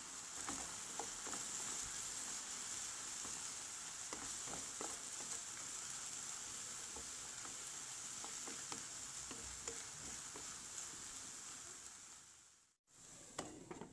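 Diced chicken breast and onion sizzling in oil in a nonstick frying pan, stirred with a wooden spatula that scrapes and taps against the pan in many small clicks over a steady hiss. The sound cuts out suddenly near the end, followed by a few more taps.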